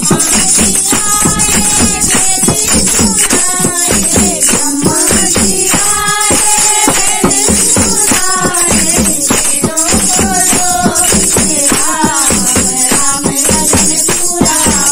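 Women singing a devotional kirtan hymn together, accompanied by a steadily beaten dholak drum and jingling hand percussion.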